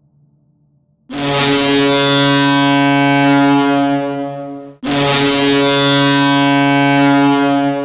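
Hockey goal horn sounding two long, steady blasts of a low air-horn tone, each about three and a half seconds, starting about a second in. Dry, without reverb: each blast cuts off cleanly.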